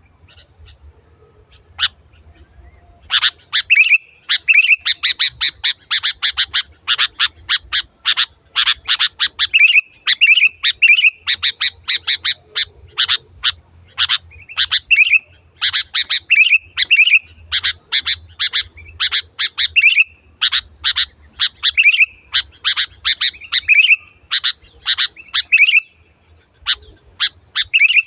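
Sooty-headed bulbul (kutilang) singing loudly and persistently: quick runs of sharp, chattering notes, starting about three seconds in, with a short pause near the end.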